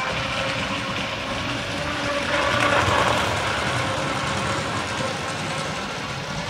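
HO-scale model train running on its track: a steady electric motor whine with wheel rumble, growing louder about two to three seconds in as the train passes close by.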